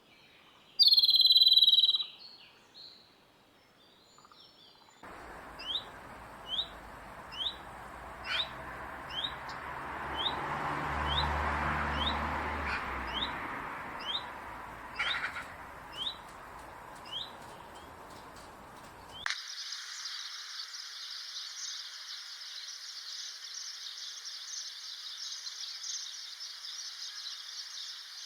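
Birds calling: one loud, clear whistled call about a second in, then a bird repeating short upward chirps about every 0.7 seconds over background hiss. After about 19 seconds this cuts to a steady high buzzing chorus, like insects.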